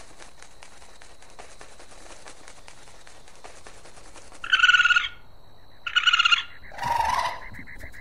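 Kakapo calling: after a few seconds of faint crackling background, two loud high-pitched calls about a second apart, then a shorter, lower, harsher call.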